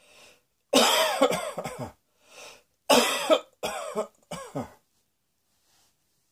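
A person coughing in two fits: a run of harsh, voiced coughs, a quick breath in, then three more coughs.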